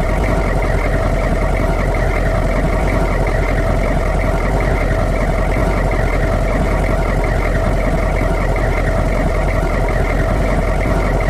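Humvee's V8 diesel engine idling at a steady speed, with no revving or change in pitch.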